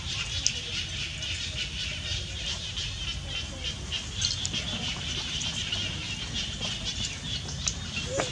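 Outdoor ambience: a steady, high, rapidly pulsing buzz over a low rumble, with a few faint short clicks and squeaks, one near the end.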